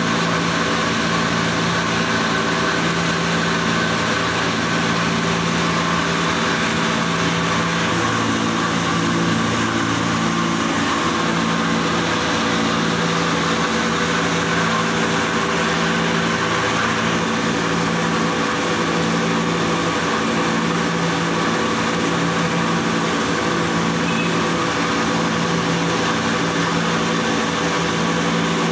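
Electric motor-driven flour mill (atta chakki) running steadily while grinding grain, giving a loud, even hum and whir with no change.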